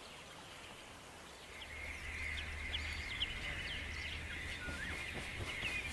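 Marsh ambience of birds calling: many short chirps over a steady high drone, starting about a second and a half in, with a low rumble underneath.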